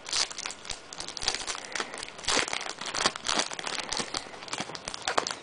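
Foil wrapper of a trading card pack crinkling and tearing as hands peel it open, an irregular run of crackles.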